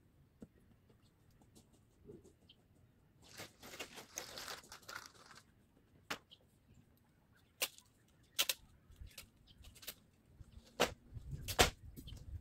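Scattered work-site handling noises: a few seconds of rustling, then a string of single sharp clicks and knocks with a couple of dull thumps near the end.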